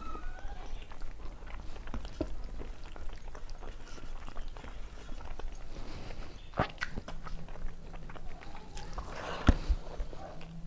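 Close-miked chewing and wet mouth sounds of a person eating rice and curry with her hand, with many short clicks and smacks; the sharpest click comes about nine and a half seconds in.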